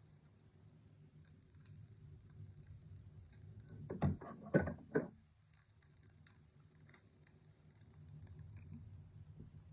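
Trading cards being handled and flipped through: faint scattered ticks and rustles of card stock, with three louder clicks about four to five seconds in.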